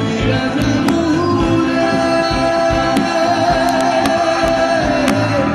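Live band playing a Bengali folk-rock song on guitars over a steady beat, with a singer holding long, wavering notes through the middle.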